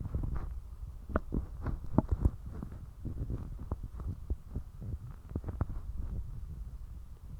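Human stomach gurgling while digesting spicy ramen: many irregular small pops and bubbly clicks over a steady low rumble, with a quick cluster of louder pops about two seconds in.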